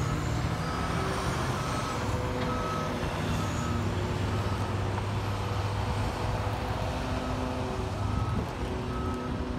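Backup alarm of a construction vehicle, short beeps at one pitch repeating about every half second, over a steady low rumble of engines and traffic.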